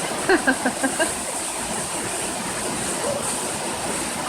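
Waterfall rushing steadily, with a few short voice sounds in the first second.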